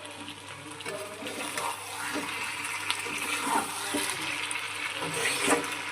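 Sizzling in a frying pan as fried rohu fish pieces are stirred through a chilli-sauce masala, with a few light clicks and scrapes from the spatula. The sizzle slowly grows louder.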